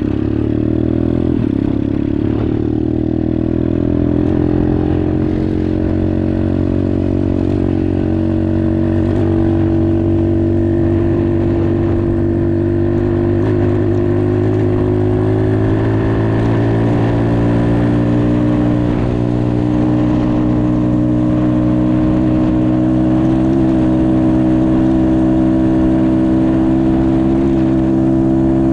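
Dirt bike engine running steadily. Its pitch climbs a little in the first few seconds, then holds with small rises and dips.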